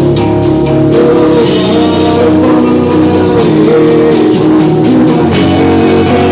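Rock band playing live, loud: held electric guitar notes over a drum kit with repeated cymbal and drum hits.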